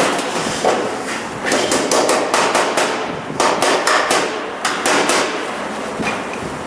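Hammer striking metal: one blow, then three quick runs of sharp blows, about four or five a second, over a steady background hiss.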